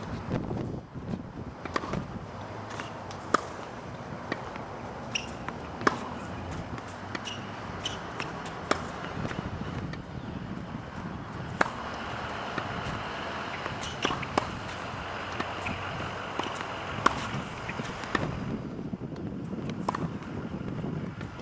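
Tennis racket striking the ball, a sharp pock about every three seconds, seven times, with fainter knocks between the strikes over a steady background hiss.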